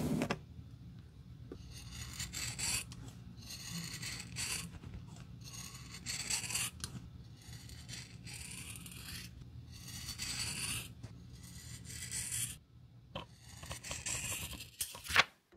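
Large steel shears cutting through a thick sheet of black rubber soling: a run of scraping, rasping cuts, each about a second long, ending in a sharp snap near the end.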